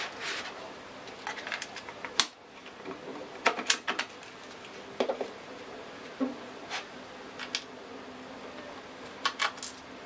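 Scattered plastic clicks and knocks as the bottom access cover of a Dell Precision laptop is slid off and handled. The loudest snaps come about two seconds in and in a quick cluster around four seconds in.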